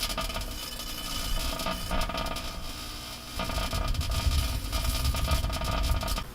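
Microwave oven running: a steady hum over a noisy hiss and low rumble, growing louder about two seconds in and again a little past three seconds.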